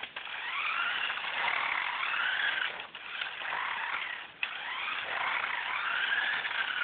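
Toy RC truck's small electric motor whining, its pitch rising and falling as it speeds up and slows down, with two brief drops in sound about three and four and a half seconds in.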